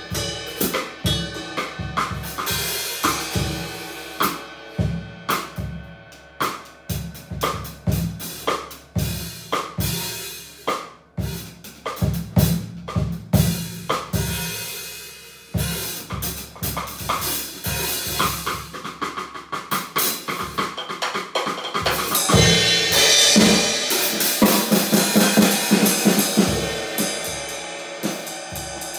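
Acoustic drum kit being played: snare, bass drum and cymbal strokes in an irregular practice pattern. About three quarters of the way through it grows louder and busier, with a wash of cymbals over fast drum strokes.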